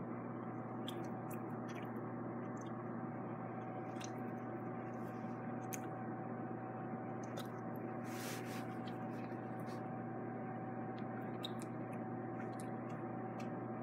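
Scattered faint wet mouth clicks and a brief slurp about eight seconds in, from someone sucking the juice from a lemon, over a steady electrical hum with a constant mid-pitched tone.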